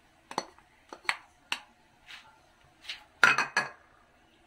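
A plastic bowl knocking and clinking against a frying pan as julienned carrots are tipped and shaken out of it: a string of sharp separate knocks, the loudest a quick cluster a little after three seconds in.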